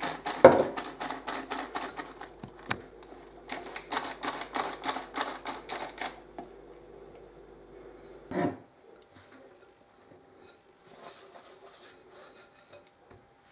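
Handheld metal flour sifter worked over a bowl, clicking rapidly at about five strokes a second in two runs, the second starting about three and a half seconds in. A single thump follows about eight seconds in.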